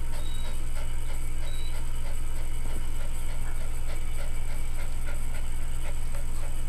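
Dog panting quickly and rhythmically, about three breaths a second, over a steady low hum.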